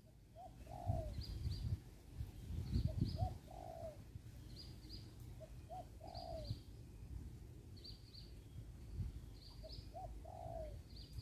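A dove cooing a short phrase about four times, every two to three seconds: two brief notes and then a longer falling one. A smaller bird gives paired high chirps at a similar pace, and low rumbling handling noise comes in the first few seconds.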